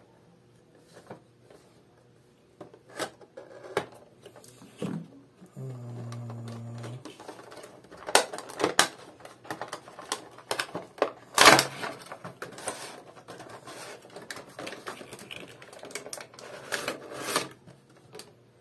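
Cardboard Funko Pop box being handled and opened: irregular clicks, taps and scrapes of cardboard and the plastic window, the loudest about eleven seconds in. A short low buzz with a steady pitch lasts about a second, around six seconds in.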